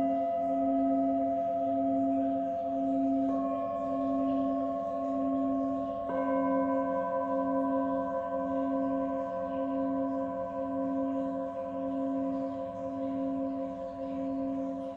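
Tibetan singing bowls struck with a mallet three times, about three seconds apart, each strike adding a new long ringing tone. Beneath them a low bowl tone wavers steadily, swelling and fading a little under twice a second.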